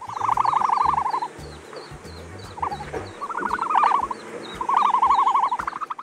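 Three rapid pulsed, trilling calls about a second long each, played as an ostrich's call, with a faint chirp repeating above them and background music under the first half.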